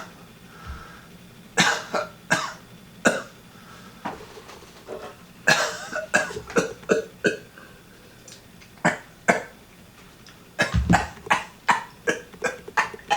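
A woman coughing over and over in a fit: short, sharp coughs coming in several clusters with brief pauses between them.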